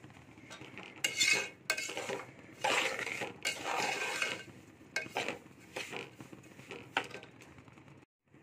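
A metal slotted spoon scrapes and stirs semolina around a steel pot in irregular strokes, from about a second in until shortly before the end. The semolina is being fried golden for halwa.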